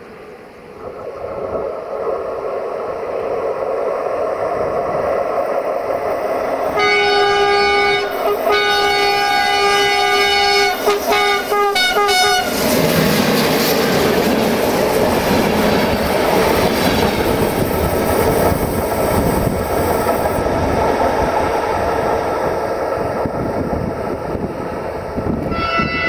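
Romanian 060-EA (LE 5100 kW) electric locomotive approaching and sounding its horn for about five seconds, with a brief break early on. The locomotive and its passenger coaches then pass close by with loud wheel-on-rail noise and clicking over the rail joints. A second horn blast starts just at the end.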